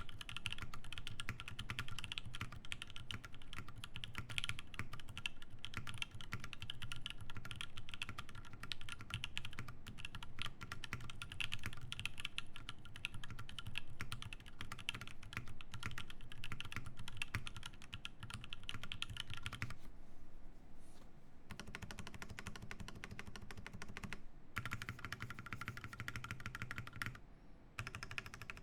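Typing on a Satisfaction 75 mechanical keyboard with lubed Alpaca linear switches, GMK Bento keycaps and an FR4 plate: a dense run of soft keystroke clacks. The typing thins out for a few seconds about two-thirds of the way through, then picks up again.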